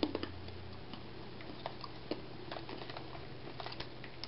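Someone chewing sweet blueberry almonds, which have a crunchy coating: a scattered run of small, sharp crunches and clicks at irregular intervals.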